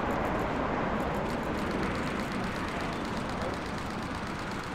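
Jet airliner engine noise: a steady rumble that slowly fades.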